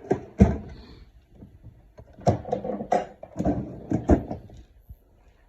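Plastic tool box drawers and lids being handled: two sharp knocks at the start, then a run of clattering clicks and knocks about two seconds in.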